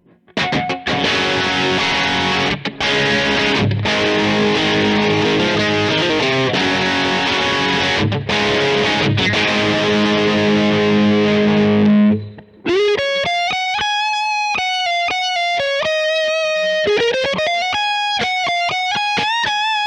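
Distorted electric guitar, a Fender Stratocaster with single-coil pickups played through a Kemper profile of a Fender Frontman Reverb practice amp fitted with a Vox AC10 cabinet. It plays heavy rhythm chords with a few brief stops for about twelve seconds, then a single-note lead riff with slides.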